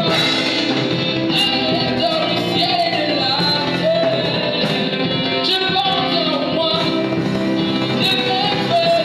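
A song with a female lead singing over guitar and band accompaniment, in a gospel style.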